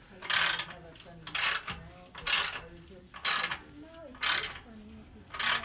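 Hand ratchet wrench turning a bolt: a short burst of pawl clicking with each back-swing, about once a second, six times.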